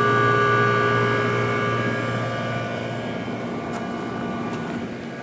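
1981 Emerson Quiet Kool 18,000 BTU window air conditioner running, compressor at full head pressure with the fan: a steady hum with several steady tones. It sounds like a healthy, happy-running compressor. It grows quieter through the second half, and the low hum drops away about three seconds in.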